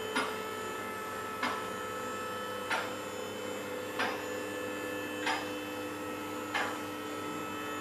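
Two-post vehicle lift raising a car: the steady hum of its electric hydraulic pump, with a sharp click about every 1.3 seconds as the safety locks catch on the posts.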